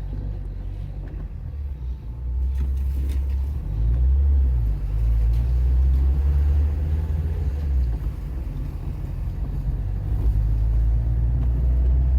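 Car driving: a steady low engine and road rumble, louder from about two seconds in and again from about four seconds in.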